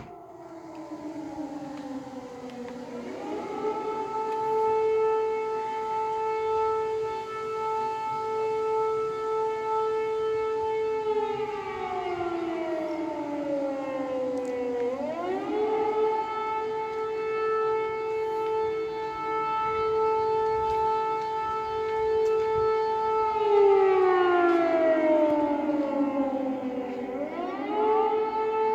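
Civil-defence air-raid siren wailing in slow cycles. Each time its pitch climbs, holds a steady tone for about eight seconds, then sinks away before climbing again. It is sounding an air-raid alert.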